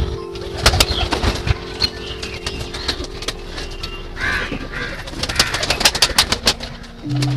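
Flock of domestic pigeons feeding on grain on a loft floor: cooing, with many quick, sharp clicks of pecking and bursts of wing-flapping.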